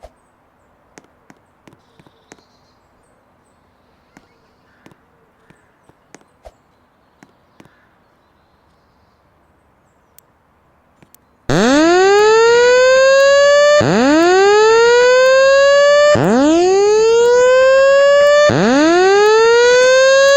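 Faint room tone with a few small clicks, then about halfway through a fire alarm's evacuation tone comes on loud. It sounds a rising whoop, each sweep climbing for about two seconds before restarting, four whoops in all, and it cuts off near the end. This is a voice-evacuation alarm that follows the tone with a spoken message.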